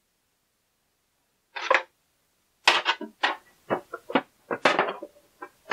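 A second and a half of silence, then a string of short, uneven scrapes, knocks and rustles: an HDMI cable being handled and fed behind a PC case.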